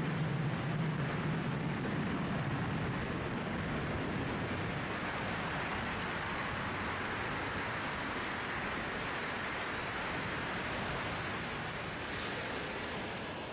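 Steady rush of wind over a camera microphone in wingsuit flight, with a deeper rumble in the first couple of seconds that eases off; it begins to fade near the end.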